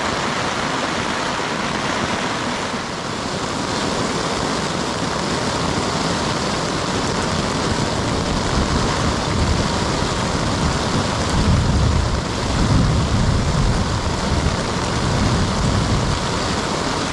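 Steady rain in a thunderstorm, with a low rumble of thunder building from about halfway through and strongest near the end.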